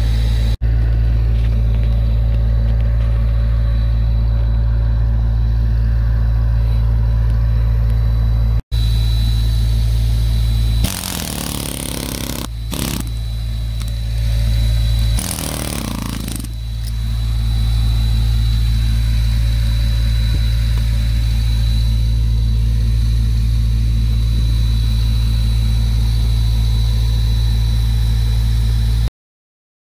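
Pneumatic air chisel (air hammer) hammering steadily as it chips wood from tree roots. It breaks off briefly twice in the first nine seconds, turns scrapier with noisy bursts for a few seconds in the middle, and stops abruptly just before the end.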